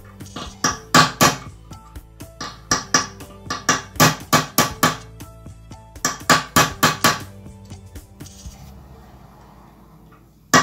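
Hammer striking metal in quick clusters of sharp blows, each with a short metallic ring, then a pause of about two seconds near the end.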